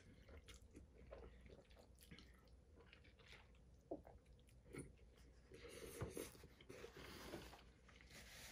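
Faint close chewing of a mouthful of pasta, with a few soft clicks of a fork against a stainless steel bowl.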